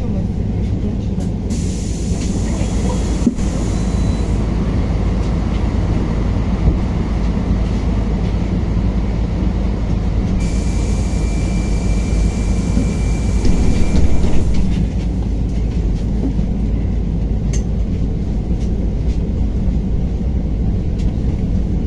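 Inside the cabin of a KAMAZ-6282 battery-electric bus under way: a steady low rumble of running and road noise with a faint hum. Two stretches of high hiss come in, a couple of seconds in and again from about the middle, the second with a steady high whine.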